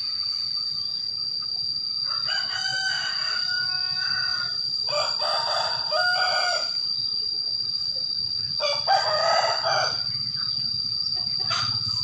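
A rooster crowing three times, starting about two seconds in, about five seconds in and near nine seconds in, over a steady high-pitched insect drone.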